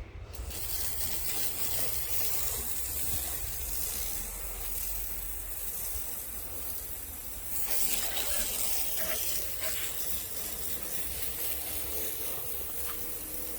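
Sawmill cutting through an elm log: a steady hiss of the blade in the wood over a low, constant engine hum, getting a little louder about seven seconds in.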